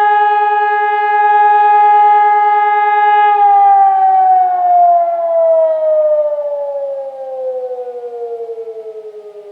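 Hörmann ECN 2400 electronic civil-defence siren sounding the steady tone of the all-clear signal (Entwarnung). About three seconds in it starts to wind down, falling slowly in pitch and fading.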